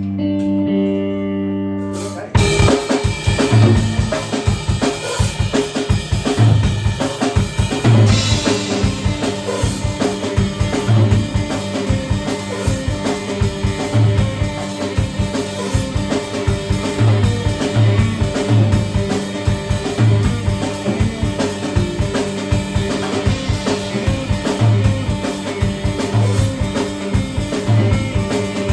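Live guitar and drum music: held guitar chords ring for about two seconds, then the drums come in with a steady beat of bass-drum and snare hits under strummed guitar.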